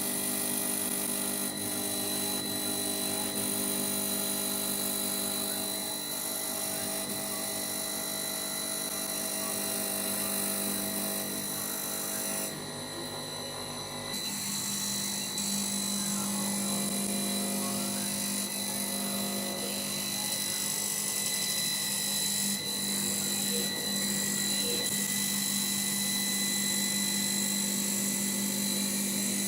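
CNC wood turning lathe running: a steady machine whine of several fixed tones over a hiss. The hiss drops out briefly about halfway through, then picks up again.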